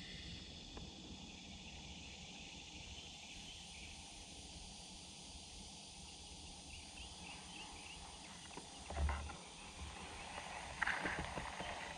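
Faint outdoor woodland ambience with soft, repeated high chirping. A single low thump comes about nine seconds in, and brief scratchy rustling follows near the end.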